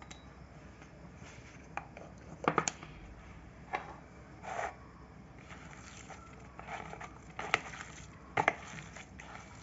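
Kitchen work sounds: a run of irregular knocks and clatters of utensils and dishes, the sharpest a little after two seconds and near the end.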